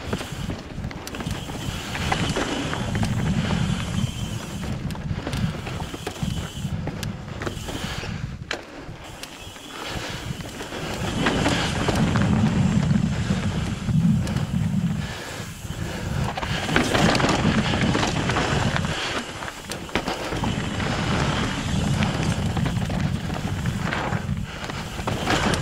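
Mountain bike riding down granite slabs: wind buffeting the microphone over the rumble and rattle of tyres and bike on rock. It comes in louder and quieter stretches, with a brief lull about nine seconds in.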